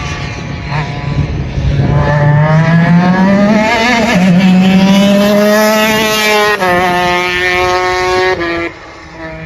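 250cc two-stroke superkart engine at high revs on track, its pitch climbing, dipping briefly about four seconds in, then holding high before dropping in two steps near the end as the kart slows, with the level falling sharply just before the end.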